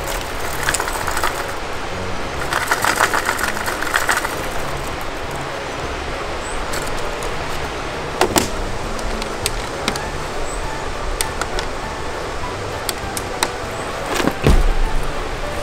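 Background music over a steady noise bed, with clicks and rattles of plastic lure cases being handled in a hard plastic tackle box, and a loud thump near the end as the box is tipped and closed.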